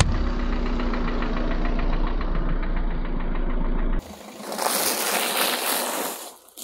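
A car engine running close to the ground, a steady low rumble with a rapid, regular pulsing. After a sudden cut, about half a second later, a car tyre rolls over aluminium foil trays of crunchy orange balls, a dense crackling and crunching that fades away near the end.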